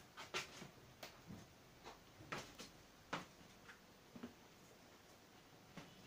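Near silence broken by faint, irregular clicks and taps, about nine of them at uneven spacing.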